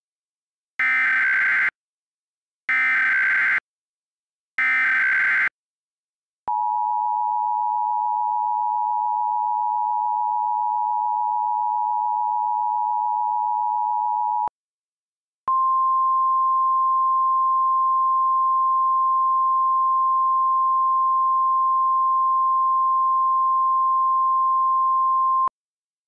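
Emergency Alert System data header: three short, harsh digital screeches about a second apart. Then the two-tone EAS attention signal is held for about eight seconds. After a one-second pause, a single steady alert tone sounds for about ten seconds.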